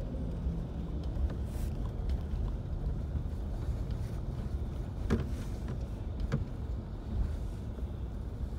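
Steady road and engine rumble of a moving car, heard inside its cabin, with a couple of short knocks about five and six seconds in.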